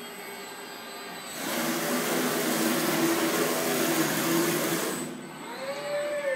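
Fanuc R2000iB/165F industrial robot's servo drives whining as the arm swings a car seat, with a loud steady hiss and low hum for about three and a half seconds in the middle. Near the end a whine rises and falls in pitch as an axis speeds up and slows down.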